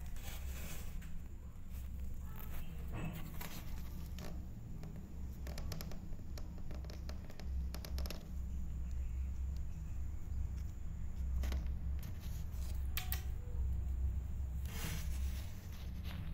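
Low steady rumble with scattered soft clicks and scratchy rustles, as of fur and blanket brushing against a phone microphone held right up against the cats.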